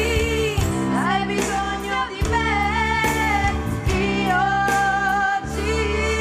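Musical theatre song: a woman singing long held notes over sustained instrumental accompaniment.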